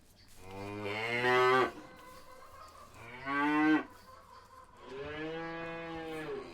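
A cow mooing three times. The first call swells louder over about a second, a short loud call comes about three seconds in, and a longer, steadier one follows near the end.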